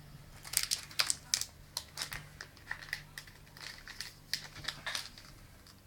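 Plastic foil wrapper of a Carddass trading-card booster pack crinkling as it is handled and opened: a quick irregular run of sharp crackles that stops about five seconds in.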